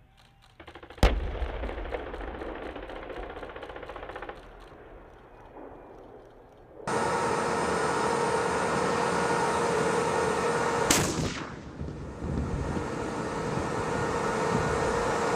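M1 Abrams tank main gun firing about a second in, followed by a few seconds of distant machine-gun fire at about four rounds a second. Then a tank's gas-turbine engine whines steadily, and the main gun fires again once near 11 s.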